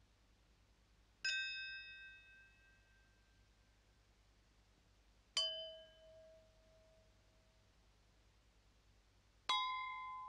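Three single struck chime notes, each a different pitch, about four seconds apart. Each rings out and fades.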